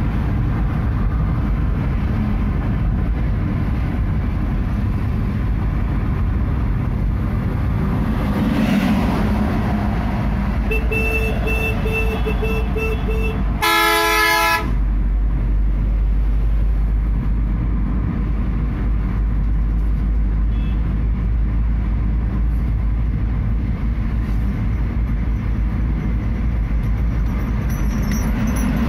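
Steady road and engine noise inside a car's cabin at highway speed. A vehicle horn beeps in a rapid pulsing pattern for about three seconds, starting about eleven seconds in, followed at once by a louder horn blast lasting about a second.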